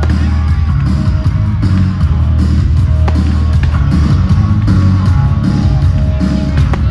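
Loud rock music with a heavy, steady bass line.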